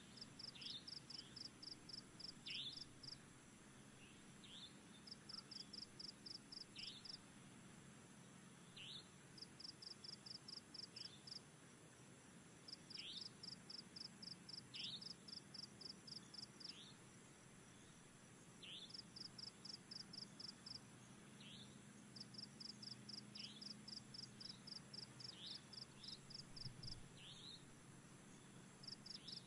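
Faint insect chirping: rhythmic pulsed bursts of about two seconds, a few pulses a second, repeating with short gaps. Short high chirps falling in pitch come every second or two alongside them.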